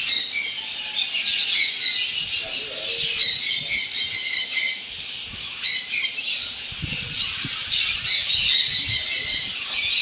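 A flock of small captive parrots chattering and squawking, a dense, unbroken stream of many overlapping high calls.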